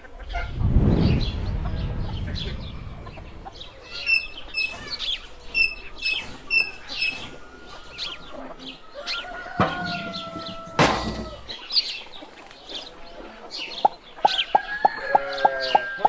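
Farmyard ambience: chickens clucking and small birds chirping, with a low rumble about a second in and a held, crow-like call around ten seconds in. Evenly spaced ticks come in near the end.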